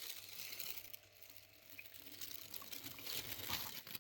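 Faint, irregular rustling and crinkling of vinyl film being handled on a car body panel.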